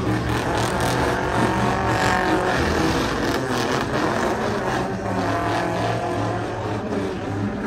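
Pickup truck's engine held at high revs while it does a tyre-smoking burnout, the pitch wavering a little up and down.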